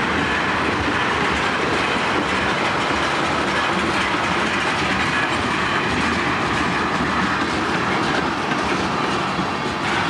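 Freight train rolling past, wheels clattering over rail joints with a steady rushing noise.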